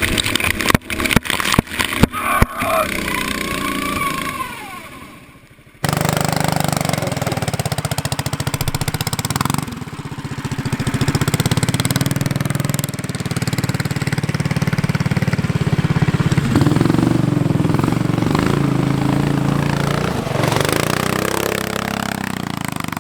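Off-road cart's small engine running as it drives through brush, with a flurry of sharp knocks and clicks in the first few seconds. The engine then runs steadily, its pitch shifting partway through.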